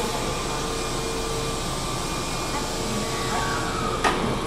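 Keihan 6000-series commuter train pulling in along the platform and coming to a stop, a steady hum and hiss, with one sharp clack about four seconds in.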